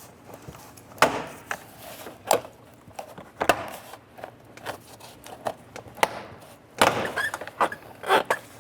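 Plastic push-pin clips of a Jeep Liberty door trim panel popping loose as the panel is pulled away from the metal door: a handful of sharp snaps, with a quicker cluster near the end.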